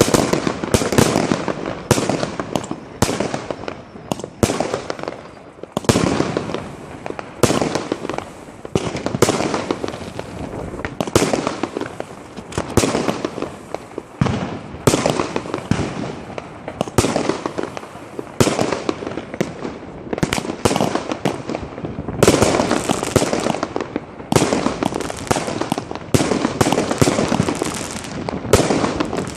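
Consumer fireworks going off in continuous fire: battery fireworks and rockets bursting in quick succession, sharp bangs several a second, each trailing off in crackle.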